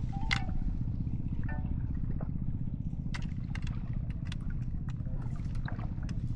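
A small boat's engine running steadily at a fast, even pulse, with scattered light clicks and knocks over it.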